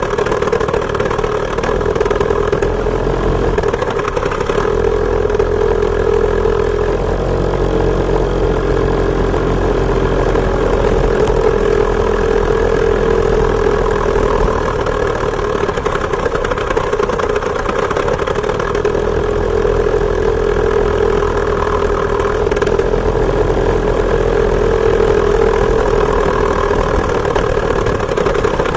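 Two-stroke chainsaw engine driving a homemade moped, running steadily under way with only small rises and falls in pitch.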